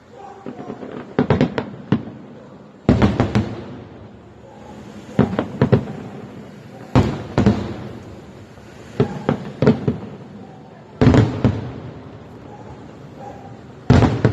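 Aerial fireworks shells bursting in clusters of sharp bangs, a new cluster every two seconds or so, each bang trailing off in an echoing rumble.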